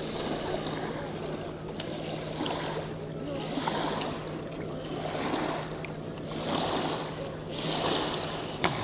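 Small waves lapping and washing at the water's edge, swelling about every second and a half, over a steady low hum.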